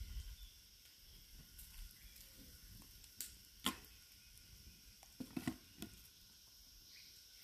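A few light clicks and knocks of plastic containers and a coconut shell being picked up and set down, the sharpest about halfway through and a quick cluster near the end, over a faint steady hiss.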